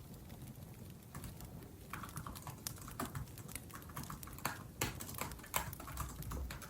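Typing on a laptop keyboard: an irregular run of light key clicks.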